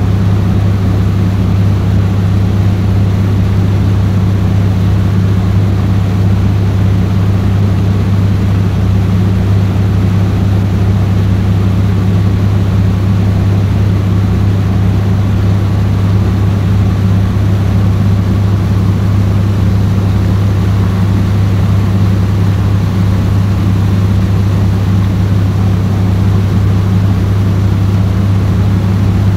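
A boat's engine running steadily under way, heard from on board: a loud, unchanging deep hum.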